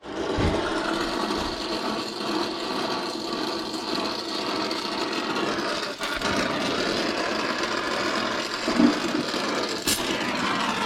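A power tool running steadily, with one sharp click near the end.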